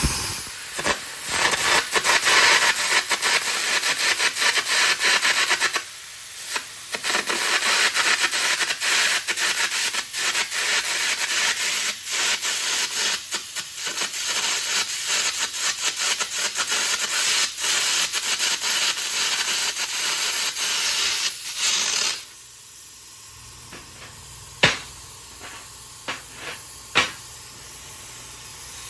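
Air carbon arc gouging: the carbon rod's arc crackling and popping loudly under a steady blast of compressed air, with a brief break about six seconds in. It stops suddenly about three-quarters of the way through, leaving a quieter steady hiss and a couple of sharp clicks.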